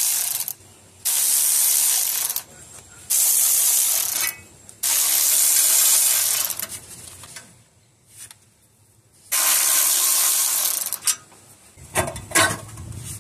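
Repeated bursts of loud hissing from pressurized gas being released, about five of them, each one to two seconds long with short gaps. A few sharp clicks come near the end.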